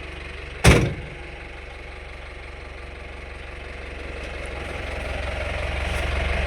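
A vehicle's engine idling steadily, with one loud thump less than a second in. The engine sound grows gradually louder over the last couple of seconds.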